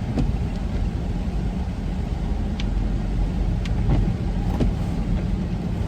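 Steady road and engine noise heard from inside a moving van's cabin on a wet road, with a few faint ticks.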